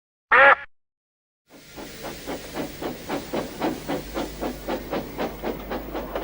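Steam locomotive chuffing steadily, about four to five exhaust beats a second over a hiss of steam. A short loud sound comes about half a second in, before the chuffing starts.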